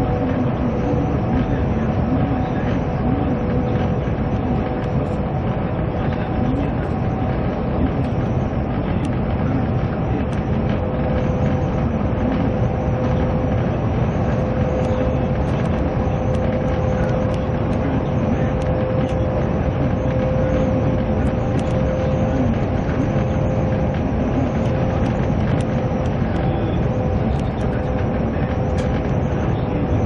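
Steady running noise of a moving vehicle, an even rumble carrying two steady hum tones.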